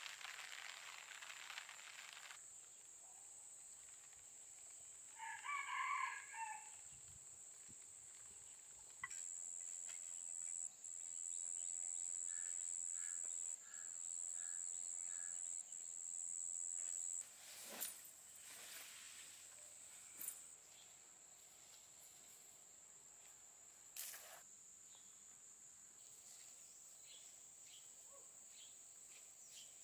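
A rooster crows once about five seconds in, over a steady high insect buzz that grows louder for several seconds in the middle; a short run of five quick bird notes sounds partway through.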